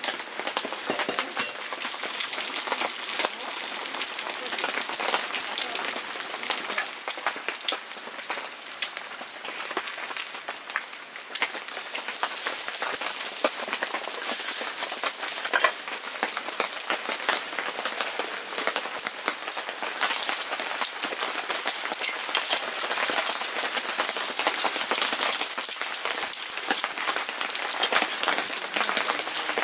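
Heavy rain pattering, mixed with an egg sizzling as it fries in butter on a cast-iron sizzling plate. The crackle eases off for a few seconds about seven seconds in and comes back louder about twelve seconds in.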